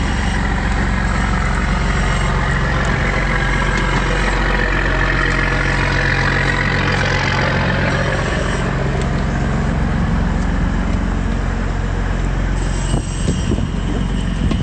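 Boat engine idling: a steady low drone with a hiss over it. The drone dips briefly and a few knocks sound near the end.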